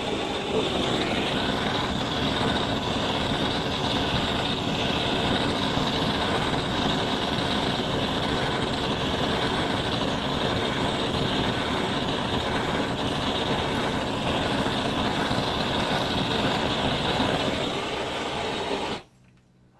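Steady running noise of a vehicle, even throughout, cutting off abruptly about a second before the end.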